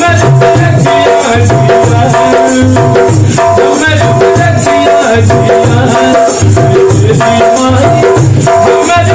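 Dholak, a two-headed hand drum, played by hand in a steady folk rhythm, with deep bass strokes about twice a second, over held notes from another instrument and a jingling rattle.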